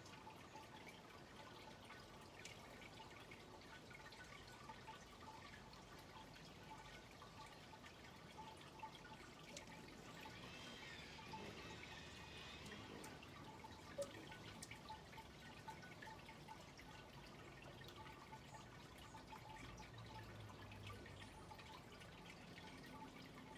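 Near silence: a faint outdoor background, with a brief faint twittering about halfway through.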